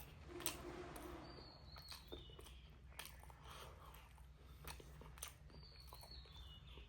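Faint chewing and mouth clicks of someone eating. A bird calls twice, about four seconds apart, each call a few short notes stepping down in pitch.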